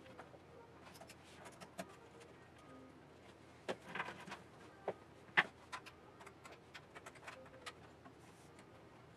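Faint scattered clicks and taps from handling the back of a desktop PC tower, with a small cluster about four seconds in and one sharper click a little after.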